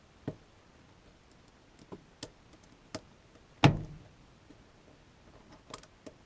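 Small metal clicks and taps from a lock cylinder and its threaded cap being turned and handled, with one louder knock a little past halfway.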